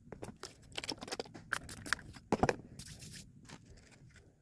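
Smacking and chewing noises of eating close to the microphone: a quick run of wet clicks and crunchy crackles, with a louder chomp about halfway through.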